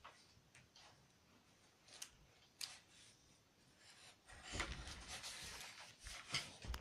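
Faint scratching of a drawing tool on paper, with a stretch of quick scribbling a little past halfway and a few light taps around it.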